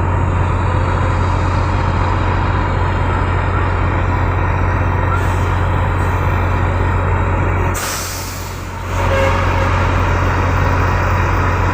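Concrete pump truck's diesel engine running steadily under load while pumping concrete, a loud constant drone with a deep hum. About eight seconds in there is a hiss lasting about a second.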